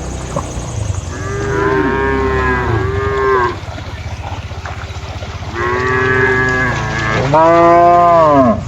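Cattle mooing: two long, drawn-out calls that rise and fall in pitch, the second louder toward its end, over a steady low rumble.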